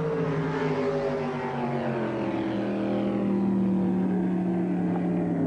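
Unblown (non-supercharged) racing drag boat engines running hard on a pass, their pitch sliding steadily downward and then holding a steady low note.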